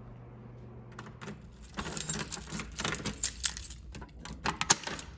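Irregular metallic clicking and jangling in quick clusters, starting about two seconds in. A steady low hum fades out before the clicking starts.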